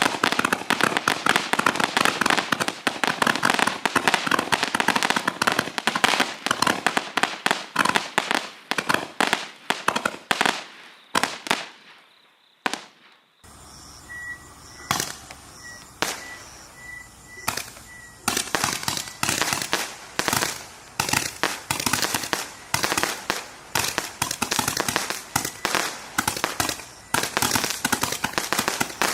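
Roman candle battery firing: a dense, rapid crackle of shots and popping effects that dies away about twelve seconds in. After a short lull come a few scattered pops, and then another run of rapid pops builds up.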